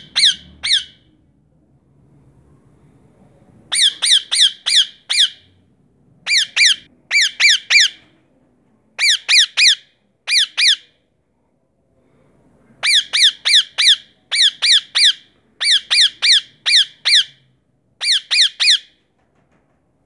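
Indian ringneck parakeet (rose-ringed parakeet) giving loud, harsh squawking calls in rapid runs of three to six, with short pauses between the runs.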